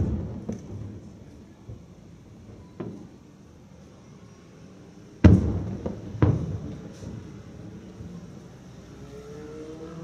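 Aerial firework shells bursting: sharp booms with rumbling, echoing tails, a small one right at the start, a faint one about three seconds in, and two loud ones a second apart about five seconds in.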